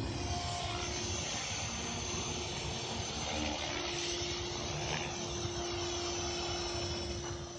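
Align T-Rex 500 electric RC helicopter in flight: the steady whine of its brushless motor and gears with the whir of the rotor blades, the tone shifting and sweeping as the helicopter moves about.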